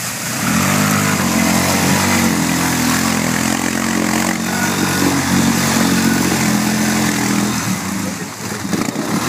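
ATV engine revving hard as its wheels spin and churn through deep mud, with mud and water spraying. The revs climb about half a second in, hold high, and sag briefly near the end before picking up again.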